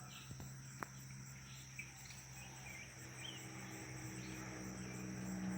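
Outdoor insect chorus, a steady high pulsing chirring of crickets, over a low steady hum that grows slightly louder near the end.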